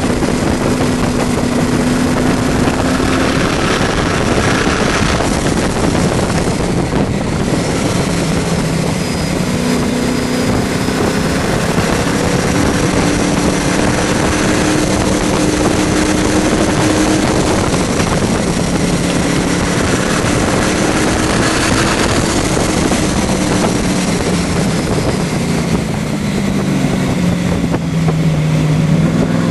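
Supercharged, fuel-injected AC Cobra engine at speed on a road course, heard from the open cockpit, its pitch rising and falling with throttle and gear changes and dipping low then climbing again near the end. Wind rushes over the microphone throughout.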